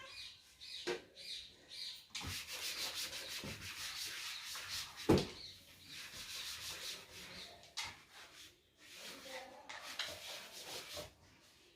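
Repeated rubbing and scraping strokes against a surface, as things are cleared up, with one sharp knock about five seconds in.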